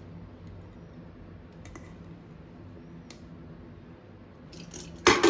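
Boiled rice tipped from a bowl into a steel cooking pot, with a couple of faint taps. Near the end comes a sharp, loud clink against the pot that rings briefly.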